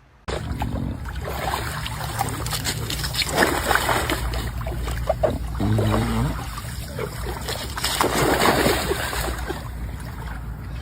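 Water splashing and sloshing in a swimming pool as a pet moves about in it, in irregular surges.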